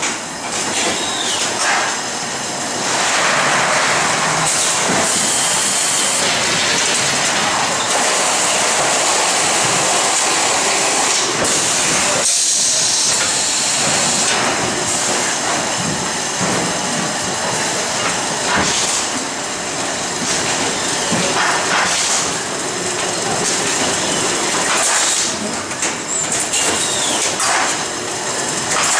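Packing-line machinery running: roller conveyors carrying cartons and the carton-handling machines give a steady, loud mechanical noise with scattered clicks and knocks.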